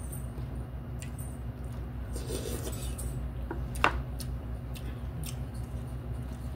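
Utensils clicking and scraping against cup-noodle bowls as two people eat, a scatter of small clicks with one sharper tap about four seconds in. A steady low hum runs underneath.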